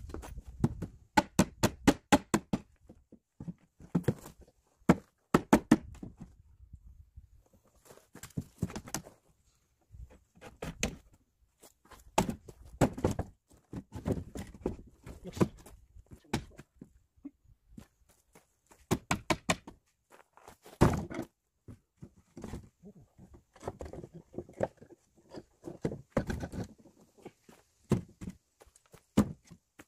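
Work boots stepping up and down on wooden porch steps, with irregular thuds and knocks from the treads and boards.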